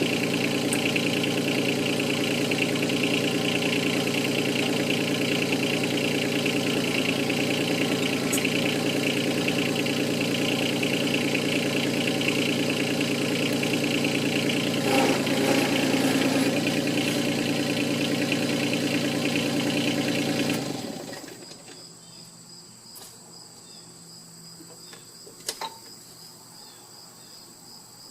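Yanmar 2450 tractor's diesel engine running steadily, then shut off about three-quarters of the way through and dying away over about a second. The shutdown comes before the backhoe's hydraulic hoses are unhooked. Afterwards faint cricket chirping and a couple of light clicks remain.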